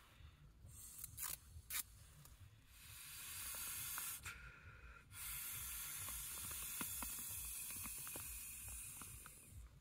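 Breath blown into the valve of an inflatable camping pillow: a short blow, then after a brief pause a long steady blow of about four seconds. A couple of sharp clicks come before it.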